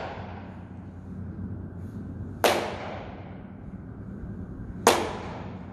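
Two single hand claps about two and a half seconds apart, each followed by its echo and reverberation dying away along a long stone cloister.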